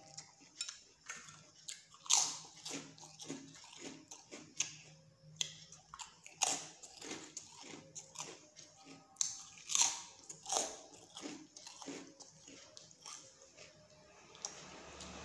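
Close-up eating sounds: wet chewing and biting with irregular sharp smacks as mouthfuls of spicy instant noodle soup are eaten.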